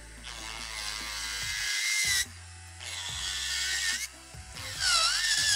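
Electric nail drill (e-file) with a medium-grit ceramic flame bit grinding gel polish off a press-on nail, in three passes of one to two seconds each. Its high whine wavers and dips as the bit is pressed on the nail but keeps turning without stalling.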